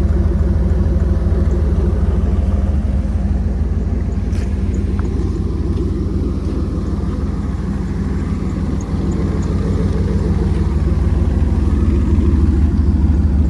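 Jeep Grand Cherokee ZJ engine idling steadily.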